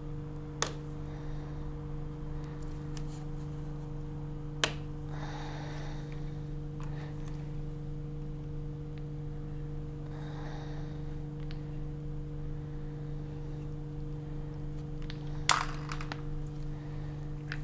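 A few sharp clicks of small plastic PCR tubes being handled and set into a plastic rack, the loudest near the end, with faint rustling between them, over a steady low hum.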